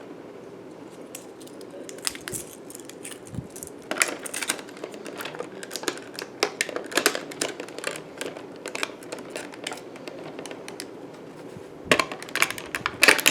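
Plastic case and small bits of a precision screwdriver kit handled and clicked together as the kit is packed away: scattered light clicks and rattles, with a denser run of clicks near the end.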